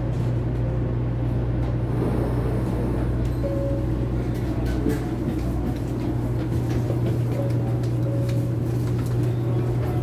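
Steady low hum and rumble inside a Series 500 Shinkansen passenger car, with a few faint short tones and light ticks over it.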